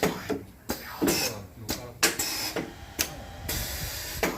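Automotive parts sorting machine running: sharp mechanical clicks and knocks, one or two a second, over a low steady hum, with a short hiss about three and a half seconds in.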